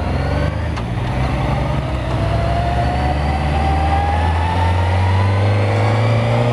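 Suzuki GSX-R motorcycle engine accelerating away, its note climbing steadily in pitch as the revs rise, over a heavy low rumble of wind on the microphone.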